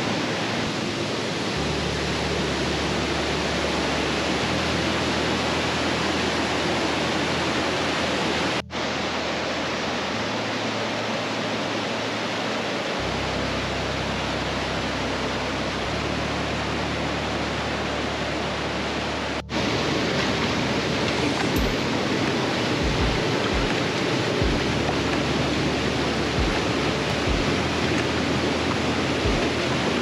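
Steady rushing of a fast mountain stream's rapids, whitewater pouring over and around boulders, with two momentary dropouts where shots are joined.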